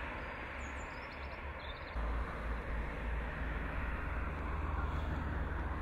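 Steady outdoor road-traffic noise, with a low rumble that grows louder about two seconds in.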